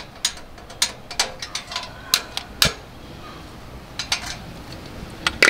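Irregular sharp metallic clicks and taps, about eight in all, from handling the metal parts of a Petromax HK500 kerosene pressure lantern that has just been taken apart and reassembled.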